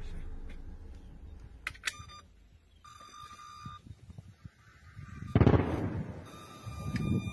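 An intermittent steady electronic beeping tone sounds from about two seconds in. Before it, a low rumble fades out, and about five seconds in there is a loud burst of rushing noise.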